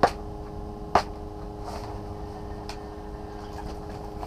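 Sharp clicks from an ice-fishing rod and reel as a crappie is reeled in and lifted through the hole. Two loud clicks come about a second apart, then a fainter one, over a steady hum.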